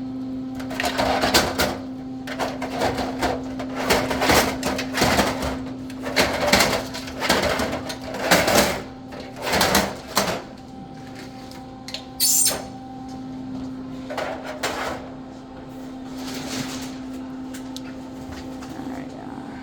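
Vending machine being restocked by hand: a run of rustles, clicks and knocks from packages and parts being handled, over a steady low hum. The handling thins out after about ten seconds, with one short hiss about twelve seconds in.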